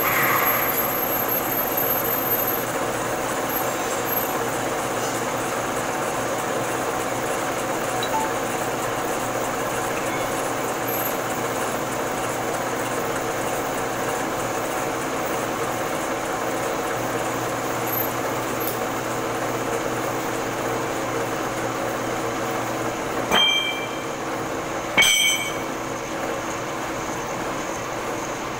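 Metal lathe running with a large cylindrical workpiece spinning in its chuck: a steady mechanical hum with a few held tones. Two sharp metallic clinks come near the end, under two seconds apart.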